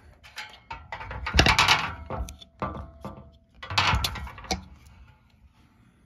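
Handling noise from a ceiling fan's motor housing being turned over by hand: two bursts of scraping and rubbing with sharp clicks, about a second in and again around four seconds in.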